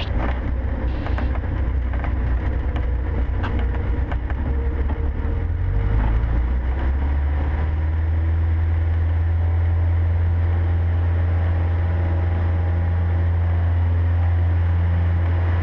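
Cessna 150's Continental O-200 four-cylinder engine and propeller running, heard inside the cabin as a steady low drone that shifts about six seconds in and then settles into an even hum.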